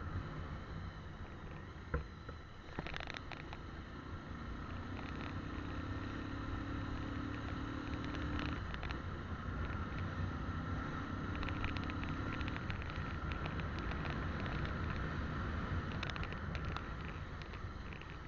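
Motorcycle running along a road with tyre and wind noise, its note held steady for a few seconds twice, with scattered light ticks and rattles.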